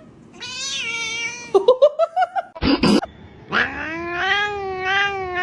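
A cat meowing: a falling meow, a quick run of short wavering cries, and a brief harsh noise. From about three and a half seconds in, a long drawn-out yowl follows.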